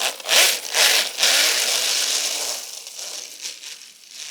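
Snow crunching and spraying: a run of quick rough bursts, about three a second, then a longer hiss that fades about two and a half seconds in.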